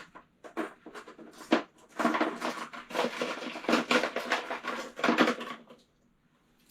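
Loose metal sockets clinking and rattling as a hand rummages through them. There are a few scattered clicks at first, then a dense clatter for about three and a half seconds that stops about a second before the end.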